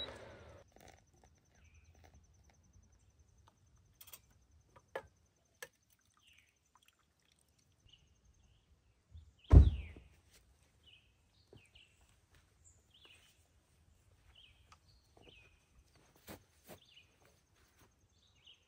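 Quiet woodland ambience: scattered faint bird chirps over a faint, high, pulsing insect trill that stops after about seven seconds and comes back near the end. A single loud thump about ten seconds in, with a few faint clicks around it.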